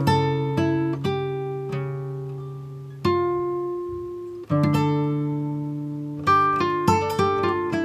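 Background music: plucked string notes and chords that ring out and slowly fade, with fresh chords struck about three, four and a half and six seconds in.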